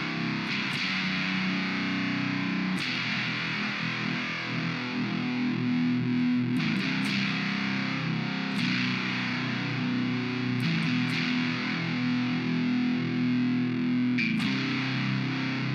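Electric guitar played through an Orange Fur Coat germanium-diode fuzz pedal. Heavily fuzzed notes and chords are picked and left to ring for a couple of seconds each.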